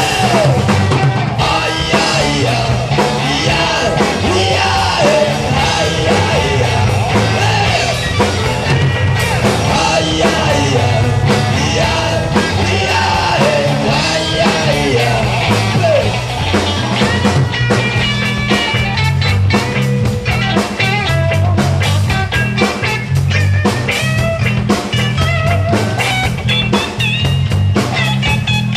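Loud rock music with a singing voice over a bass line and drums, the drumming busier in the second half.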